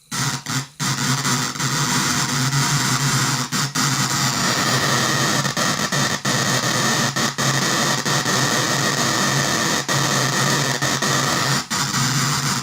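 A 20-watt speaker driven by a relay amplifier, its contacts chattering to a phone's music: a harsh, distorted noise cacophony with a steady low buzz under it and brief dropouts now and then.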